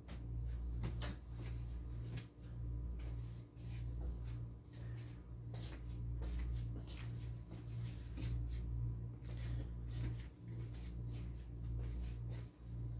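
Scattered knocks, clicks and rustles of things being picked up and handled, with a sharp knock about a second in, over the steady low hum of a window air conditioner.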